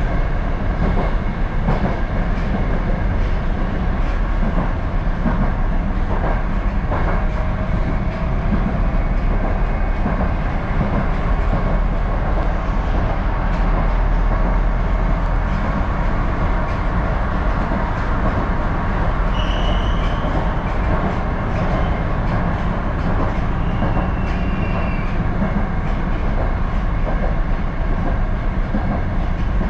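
Interior running noise of a moving 81-760/761 Oka metro car: a steady loud rumble of wheels on rails with some clattering over the track. Two short high squeals come about two-thirds of the way through.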